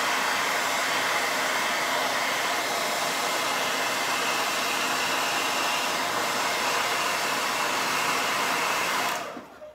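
Handheld hair dryer blowing steadily, with a faint high whine, as it dries wet acrylic paint on a small ceramic piece; it is switched off and winds down near the end.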